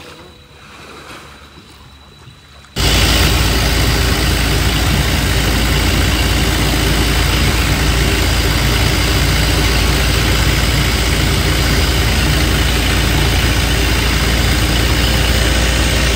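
Longtail boat's engine running loudly and steadily, beginning abruptly about three seconds in.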